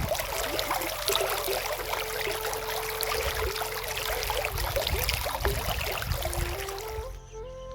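Water rushing and splashing steadily, like a stream, with faint flute music underneath; it cuts off suddenly about seven seconds in and the music comes back up.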